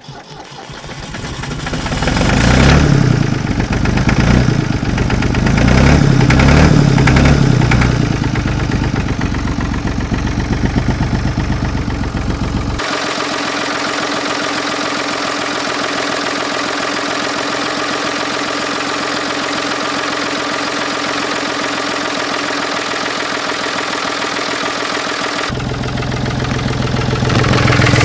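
1966 Ford 4000 tractor's three-cylinder engine catching on a cold start, running unevenly with irregular pulses for several seconds, then settling into a steady idle. It sounds thinner and more distant through the middle stretch, then close and heavy again near the end.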